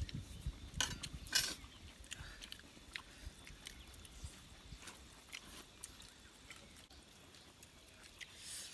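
Eating sounds of people eating rice and pork by hand off banana leaves: scattered chewing and smacking, with two sharper clicks about a second in.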